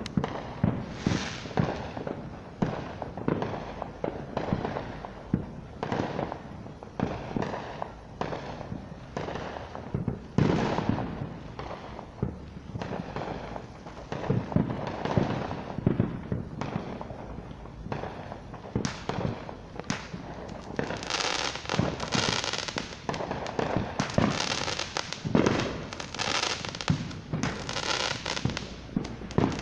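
Fireworks going off, a dense run of bangs and pops at irregular intervals.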